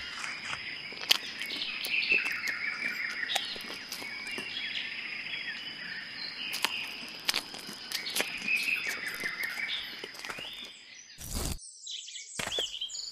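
Small birds chirping in repeated short bursts over a steady high tone, with scattered sharp crunching bites into raw tomato and cucumber; the sound drops out briefly near the end.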